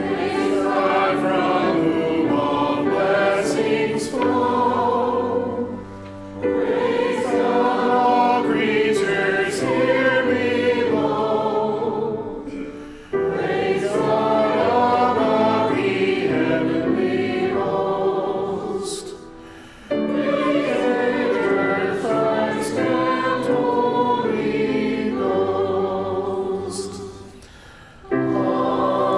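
Church choir singing a hymn in four phrases of about six seconds each, with a short breath between phrases.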